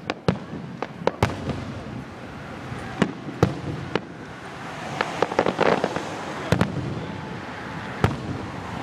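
Fireworks going off: a string of sharp bangs and cracks at irregular intervals, coming thickest just past the middle.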